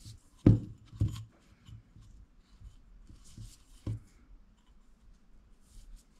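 Handling sounds: a few soft knocks, the loudest about half a second in and another about a second in, with faint rustling, as hands turn a glazed clay pot and wind wool around the cord trim.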